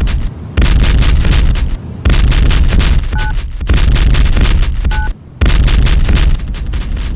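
Harsh industrial noise music: loud, dense distorted noise with a heavy low rumble and a rapid flickering texture, broken by abrupt brief drop-outs about a third of a second, two seconds and five seconds in. A short two-tone beep sounds about three seconds in and again about five seconds in.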